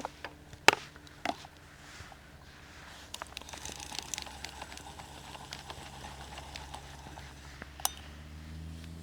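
A few sharp clicks and taps, three in the first second and a half and one more near the end, with light rattling and rustling in between, over a low steady hum.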